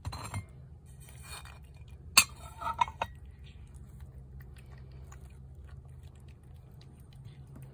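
Clinks and clatter of a ceramic plate and dry cat kibble being handled: a short clatter at the start, one sharp clink about two seconds in with a brief rattle after it, then only a faint steady hum.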